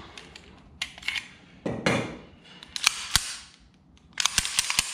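Sharp metal clicks and clacks from handling a Springfield 1911 .45 pistol and its magazine, with a quick run of several clicks near the end.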